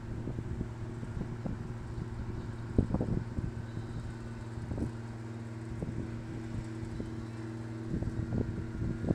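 A steady low machine hum, with wind now and then buffeting the microphone in low thumps.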